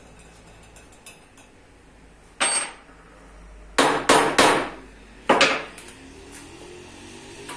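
Hammer tapping a thin metal point into the end grain of a square wooden leg blank, marking its centre: five sharp blows, one about two and a half seconds in, a quick run of three, then one more.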